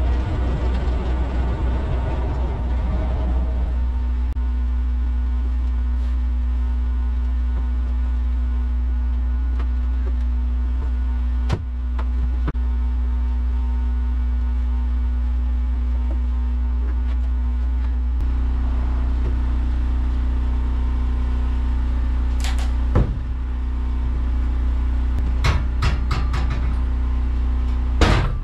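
Wood-Mizer LT15 Wide sawmill engine idling steadily, with a busier mechanical noise over it that stops about four seconds in. Sawn hemlock boards knock and clatter as they are handled, with a sharp knock around twelve seconds, another near twenty-three, and a run of knocks near the end.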